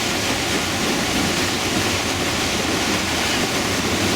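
Whitewater of a Class V river rapid rushing, a steady, even noise of churning water with no breaks or distinct splashes.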